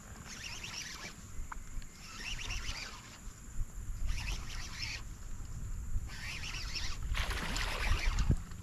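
Baitcasting reel cranked in spurts while an angler fights a hooked smallmouth bass on a crankbait. Near the end the sound grows busier and louder as the fish comes up and swirls at the surface.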